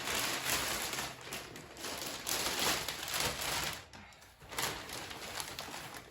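A bag rustling and crinkling as it is opened and items are pulled out of it, with a short pause about four seconds in.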